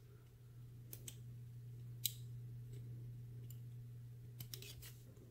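Small metallic clicks of a brass euro cylinder lock being pinned with a steel tool as a pin is loaded: two clicks about a second in, a sharper one at about two seconds, and a few quick ones near the end. A steady low hum runs underneath.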